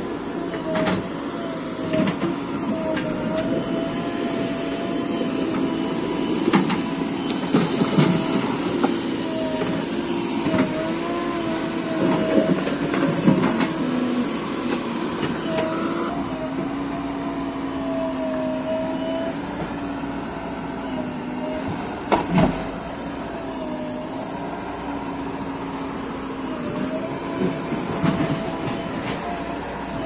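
JCB 3DX backhoe loader's diesel engine running under load while the backhoe and loader work, with a steady whine that wavers and shifts in pitch as the load changes. Occasional sharp knocks, the loudest about two-thirds of the way through.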